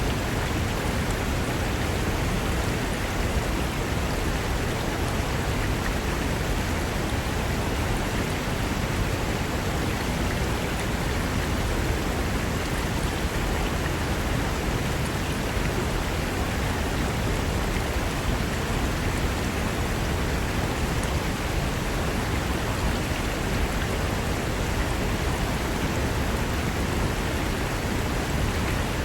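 Mountain river rushing over rocks: a steady, even roar of water.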